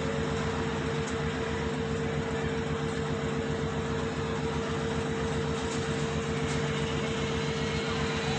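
Samsung Digital Inverter washing machine running: a steady low rumble with a constant hum-like tone.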